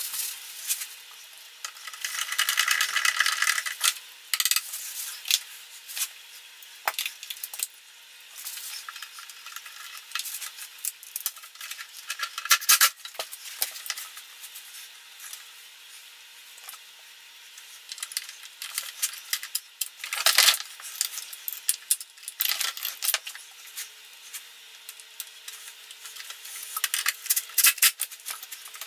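Handling and reassembly of a Ryobi leaf blower's plastic housing: scattered clicks, knocks and clatter of the plastic parts, screws and tools on the bench. About two seconds in there are a couple of seconds of rubbing.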